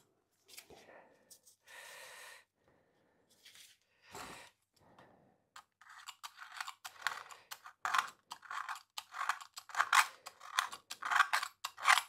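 Paintbrush strokes applying paint to a lawnmower's side frame: a few soft brushings at first, then from about halfway quick scratchy strokes of the bristles, about three a second.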